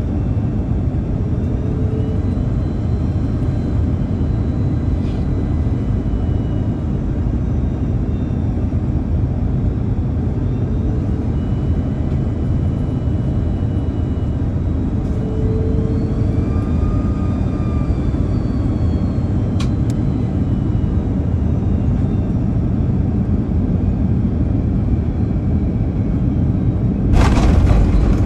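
Cabin noise of an Airbus A330-200 on final approach, heard from a seat over the wing: a steady low rumble of airflow and its General Electric CF6 engines, with faint engine whines that rise and fall in pitch about halfway through as thrust changes. Near the end a sudden louder, hissing rumble sets in as the aircraft reaches the runway and touches down.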